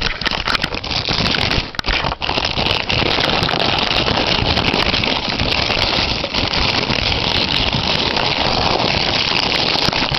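Loud, dense crinkling and rustling of plastic packaging being handled as a stereo speaker is taken out of its box. It dips briefly twice around the second second, then runs on steadily.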